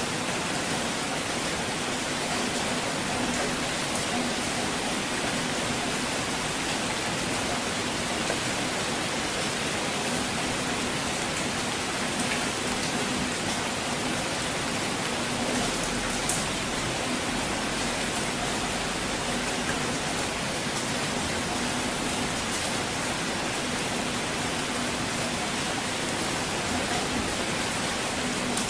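Steady rain falling, an even hiss with scattered drop ticks, and a faint low rumble of distant thunder about halfway through.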